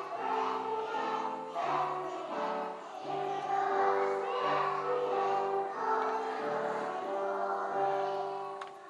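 A group of young children singing a Christmas carol together, over steady low accompanying notes.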